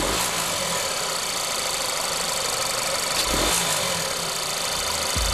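Volkswagen Beetle's 118-kilowatt TSI petrol engine idling steadily, heard close up in the open engine bay.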